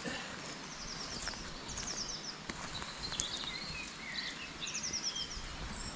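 Small songbirds singing short, high, repeated chirps and trills over a steady low rush of background noise, with a few footsteps on an earth path.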